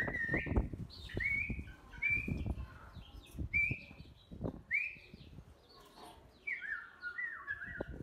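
A green ring-necked parakeet calling, a string of short whistled notes about once a second, then near the end a quicker run of notes stepping downward. Light knocks sound underneath.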